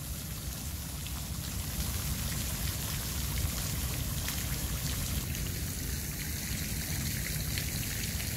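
Garden fountain jet spraying and its water falling back into the pond, a steady rain-like patter of splashing droplets over a low rumble.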